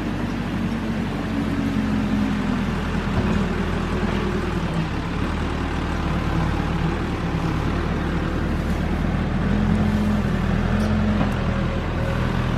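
Caterpillar backhoe's diesel engine running steadily while working, its note rising and falling a little under load.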